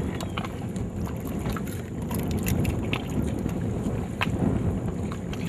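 Wind rumbling on the microphone over water lapping against a kayak's side, with a few small ticks and splashes as a dorado is held in the river and let go.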